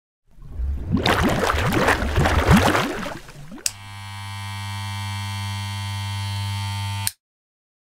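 Logo-intro sound effect: a loud, swirling, rushing sweep for about three seconds, then a click and a steady low buzzing hum that swells slightly and cuts off suddenly.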